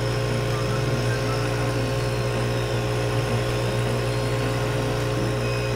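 Laser cutter running as it cuts a pick-shaped outline into a thin wooden sheet: a steady electrical hum with a few faint steady whines, the head's nozzle blowing air at the cut.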